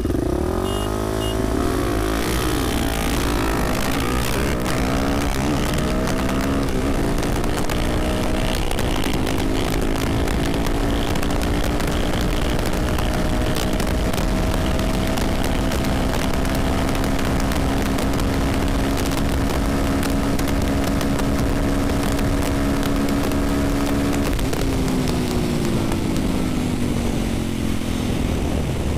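Supermoto motorcycle engine heard from the rider's seat, rising and falling through the gears for the first few seconds, then holding a steady cruise with slowly rising pitch. About 24 seconds in the throttle closes and the pitch falls away as the bike slows. Wind rush runs under it throughout.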